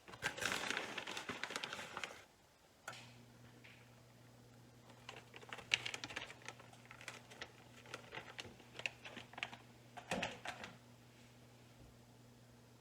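Rustling of a plastic bag for about two seconds, then light, irregular taps and clicks of shredded cheese and hands working a tortilla in a frying pan. A steady low hum starts about three seconds in.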